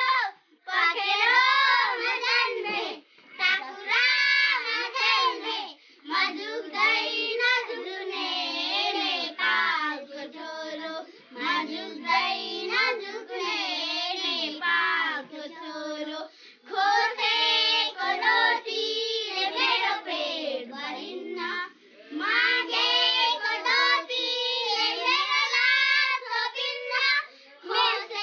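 A small group of young girls singing a song together, unaccompanied, in phrases broken by short pauses for breath.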